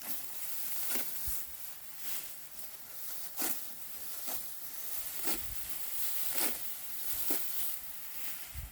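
Rustling of rice stalks, with a crisp crunch about once a second, seven in all.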